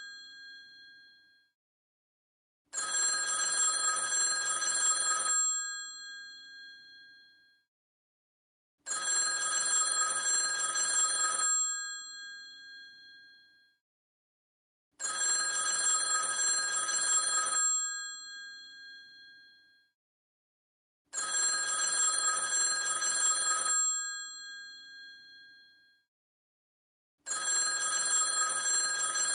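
Old telephone's mechanical bell ringing in a repeating cadence: five rings of about two and a half seconds, one starting about every six seconds. Each ring ends with the bell tone fading out, and the gaps between are silent.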